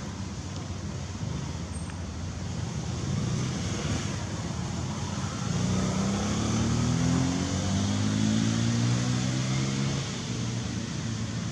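Steady road traffic noise, with a motor vehicle's engine rising in pitch as it speeds up from about halfway through, then dropping away about a second before the end.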